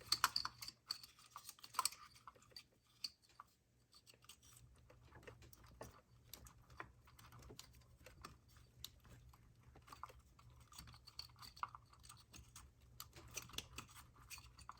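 Light, irregular clicks and plastic taps of spark plug wires and their connectors being handled and pushed back into place, over a faint steady hum.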